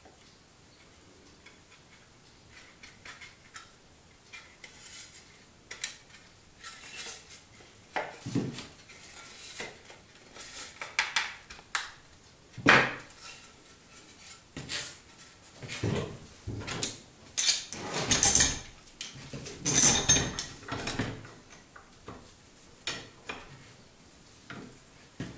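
Wooden slats being handled and fitted together on a workbench: irregular knocks, taps and clatter of wood on wood and on the bench, sparse at first and busier after a few seconds, with the loudest knock about halfway through.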